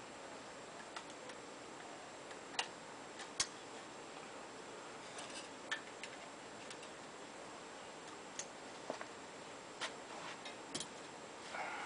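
Sparse, irregular sharp clicks and light taps over a faint steady hiss, from a strip of sheet-metal trailer skin being handled and bent by hand; a short rustle near the end.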